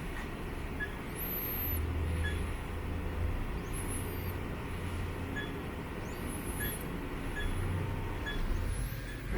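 Running machinery with a steady low hum and faint high-pitched whines that rise, hold and fall about every two to three seconds.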